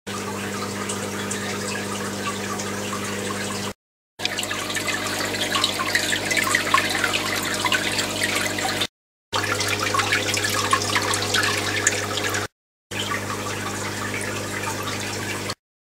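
Water trickling and splashing in a hydroponic growing system over a steady low hum. The sound breaks off in short silent gaps at about 4, 9 and 12.5 seconds in; the splashing is strongest between the first two gaps.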